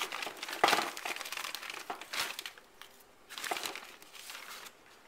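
Plastic freezer bag crinkling in several rustling bursts as frozen chicken breasts are pulled out of it.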